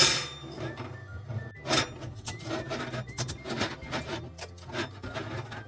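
Hard plastic clicks, knocks and scraping as pieces of a failed 3D print are handled. There is a sharp knock at the start and another just under two seconds in.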